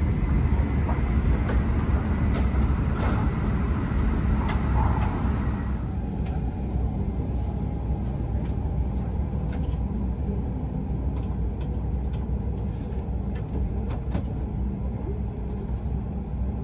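Steady low rumble of a Hokuriku Shinkansen bullet train heard from inside the passenger cabin as it runs slowly alongside a station platform. The higher hiss eases about six seconds in, and a few light clicks follow.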